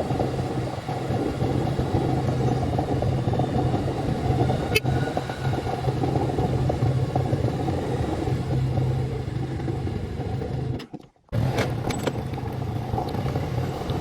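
Motorcycle engine running steadily while being ridden along a road. There is one sharp click about five seconds in, and the sound drops out for a moment about eleven seconds in before resuming.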